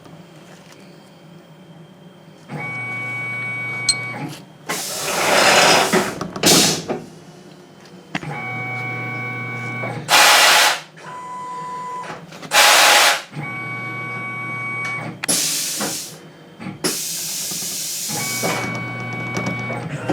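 CNC milling machine running its program. A steady motor whine comes and goes in stretches of a second or two. Between the stretches come five louder bursts of hissing air from the mist-coolant system blowing air and a little lubricant.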